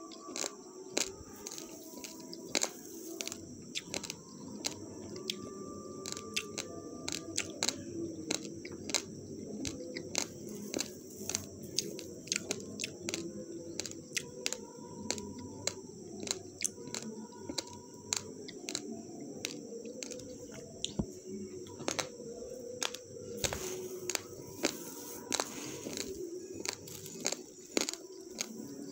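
Dry raw basmati rice being scooped and sifted by hand in a plastic bag: grains rattling and the bag crinkling, heard as many sharp, irregular clicks over a steady low background noise.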